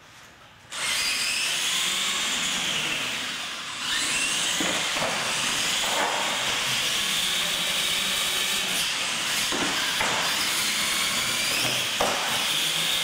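Radio-controlled monster trucks launching about a second in and racing flat out, their electric motors and geartrains whining steadily with the pitch wavering as the throttle changes. A few short knocks come through, the last near the end.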